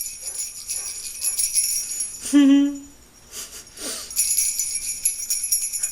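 Small jingle bells worn on the body, shaken in two long bouts of jingling, broken partway through by a short hummed vocal sound.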